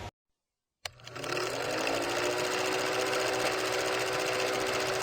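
A small motorised machine starting up and running steadily with a fast, even rattle. Its pitch climbs briefly as it comes up to speed just after a click about a second in.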